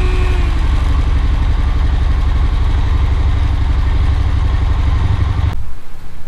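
Honda ATV engine idling at operating temperature with its electric radiator fan running, the sign that the engine is hot enough for the fan to switch on. The steady engine sound dips slightly in pitch about half a second in and cuts off abruptly about five and a half seconds in.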